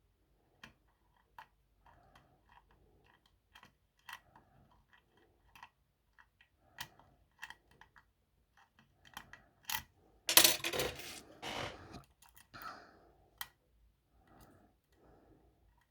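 Small metallic clicks and scrapes of a hook pick and tension wrench working the pins inside a pin-tumbler lock, with a louder short burst of rattling about ten seconds in.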